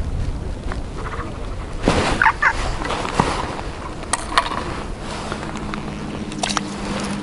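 Wind buffeting the microphone on open ice, with a few sharp clicks, a brief warbling call about two seconds in, and a low steady hum that sets in about five seconds in.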